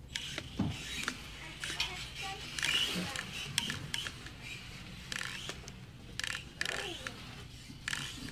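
Kyosho Mini-Z Buggy with its stock brushless electric motor driving in a string of short bursts, the motor and gears whining each time it accelerates. One falling whine comes about two-thirds of the way in.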